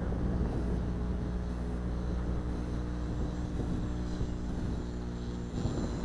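Electric motor and propeller of a HobbyKing Yak-12 foam RC model plane, a steady hum at one pitch that stops near the end.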